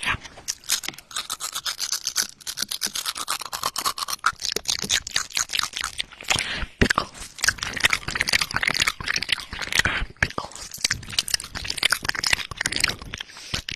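Close-up ASMR trigger sounds right at an ear-shaped microphone: a dense, unbroken run of crackly clicks and rubbing.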